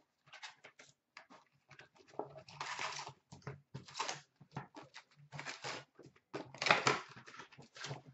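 Crinkling, tearing and rustling of the plastic wrap and cardboard of a hockey-card hobby box as it is unwrapped and opened and the foil packs are lifted out: a run of short, uneven crackles and scrapes.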